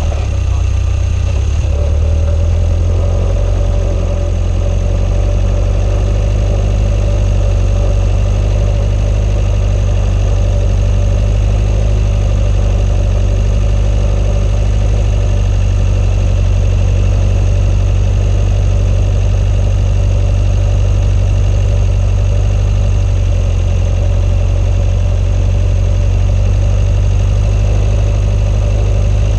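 Swamp buggy's engine running steadily at close range while the machine drives over soft muskeg: a loud, continuous low drone. The engine note shifts slightly a couple of seconds in and again near the end.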